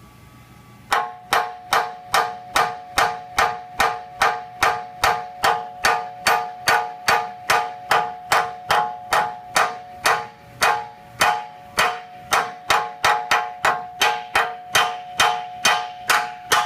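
Hammer striking the steel frame rail over and over at about three blows a second, each blow leaving a metallic ring. This is cold hammer work to straighten the rail, with no heat. The blows start about a second in.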